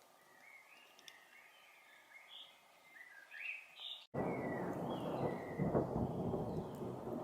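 A songbird chirping in short, varied notes over a quiet background. About four seconds in the sound drops out for an instant, then a loud, low rumble of thunder comes in and rolls on, with the bird still faintly heard above it.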